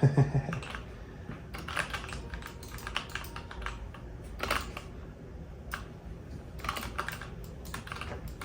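Computer keyboard keys being pressed rapidly and irregularly during gameplay, a dense, uneven run of clicks and taps.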